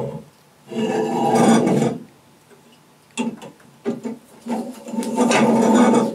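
Fast Flight bowstring thread rasping as it is pulled off the spool and drawn around the posts of an endless-loop string jig. There are two rubbing stretches of about a second each, about a second in and near the end, with a few short scrapes between.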